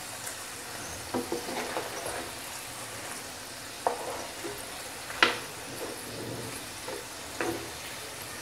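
Battered chicken strips sizzling steadily in hot oil in a non-stick kadhai, with a steel spoon knocking against the pan about five times as the pieces are turned to fry the second side.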